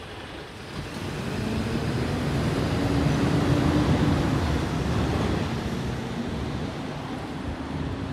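Rear-loader garbage truck's engine and tyres as it accelerates away, a low hum that grows louder over the first few seconds and then fades as the truck draws off.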